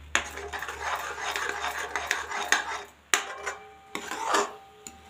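A metal spoon scrapes and stirs thick, reduced milk around a wide metal pan, metal rubbing on metal. The strokes come repeatedly for about three seconds, then after a brief pause a couple more follow.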